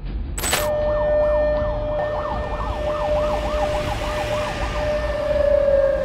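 Air-raid warning siren: a steady tone with a faster warbling tone rising and falling over it several times a second, the steady tone sliding slowly down in pitch near the end. It starts right after a sudden sharp hit about half a second in.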